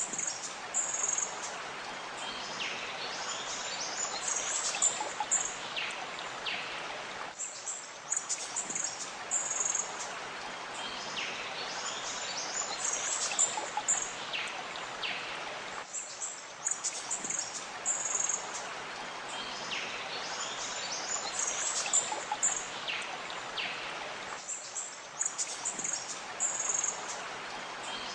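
Nature ambience of birds chirping over a steady rush of flowing water. The same stretch repeats about every eight and a half seconds, as a looped background track does.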